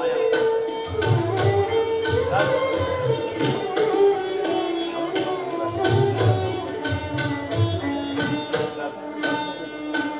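Instrumental music: a gliding melody over a steady drum beat.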